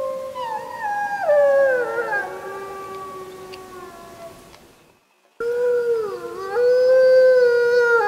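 Several wolves howling together, long overlapping held notes at different pitches, some sliding downward. The chorus fades out about five seconds in, then after a short silence a new howl starts abruptly, dips briefly and holds.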